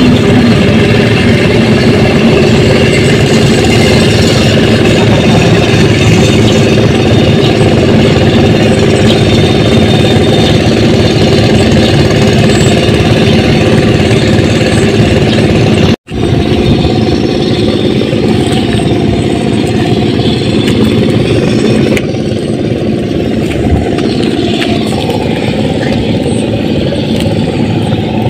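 A small engine running steadily, loud and unchanging in pitch, with a momentary break a little past halfway and a slight drop in level a few seconds later.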